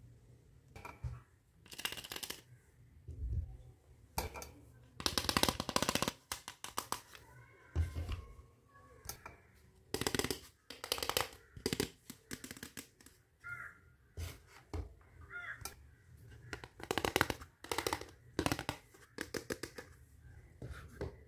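Hard plastic toy kitchen pieces clicking and clattering as they are picked up, handled and set down, in irregular bursts with a few denser rattling runs.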